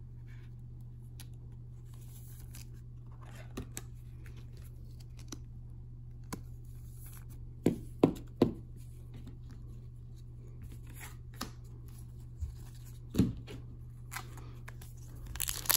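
Trading cards and a plastic card sleeve being handled: a scattering of short, sharp clicks and taps as cards are slid, flipped and set on the table, over a steady low hum. Near the end, crinkling of a foil card pack begins.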